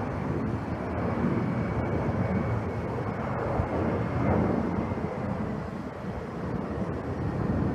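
Distant jet airliner engine noise, a steady rumble with a faint high whine, mixed with wind buffeting the microphone.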